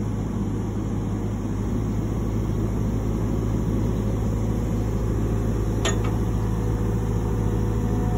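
Excavator's diesel engine running steadily while its bucket holds a hoisted engine on chains, with a light click about six seconds in.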